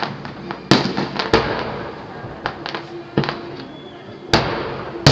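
Fireworks shells bursting overhead: about five sharp bangs, each trailing off in a rumbling echo, with a few smaller cracks between them.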